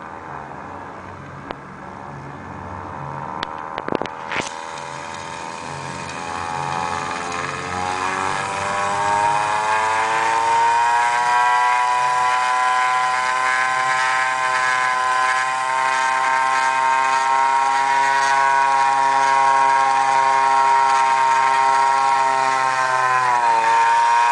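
Hall-sensor-switched pulse motor, a magnet rotor spinning on a steel shaft over a bifilar coil, humming as it speeds up: its whine climbs in pitch over several seconds, then holds steady. A few clicks about four seconds in, and near the end the pitch dips briefly and recovers.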